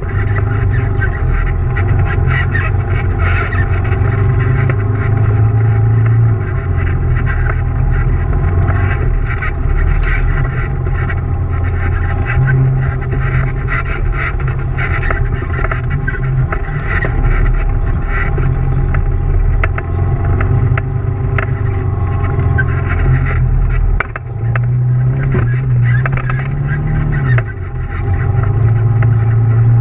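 Side-by-side UTV engine running at shifting revs as the machine drives a bumpy dirt trail, heard from inside its open cab, with frequent knocks and rattles from the body. A few seconds before the end the engine note drops, then climbs again.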